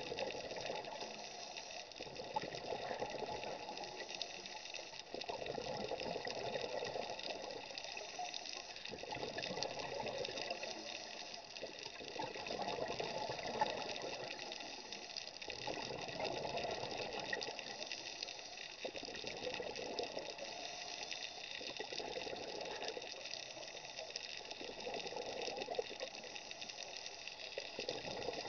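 Scuba regulator breathing underwater: waves of rushing, bubbling exhaust that swell and fade every three to four seconds with each breath.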